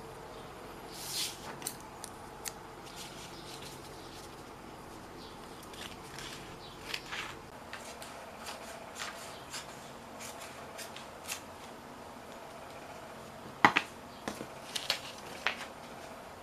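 Sheets of paper being handled, folded and slid on a wooden table: scattered soft rustles, then a sharp click a few seconds before the end followed by a few lighter clicks.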